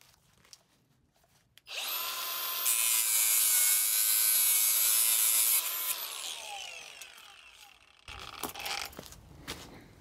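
Angle grinder starting up about two seconds in and cutting through steel angle iron for about three seconds, then spinning down with a falling whine. Light knocks and clatter of handling near the end.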